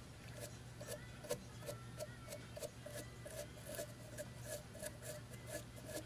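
Small brush scrubbing the plastic base of an Olympia InfoGlobe, brushing dust off its dirty contacts, in faint even strokes about three a second.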